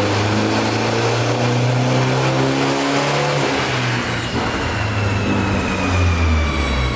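Turbocharged Hyundai Genesis Coupe engine running on a chassis dyno, its pitch easing slowly downward as the revs fall. Near the end a thin high-pitched whine sets in, sliding slowly lower.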